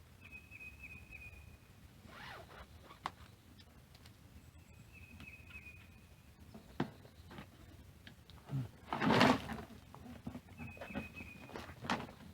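A bird gives a short, high, wavering trill three times. There are a few sharp clicks and knocks. About nine seconds in comes a louder rough rush of noise lasting under a second.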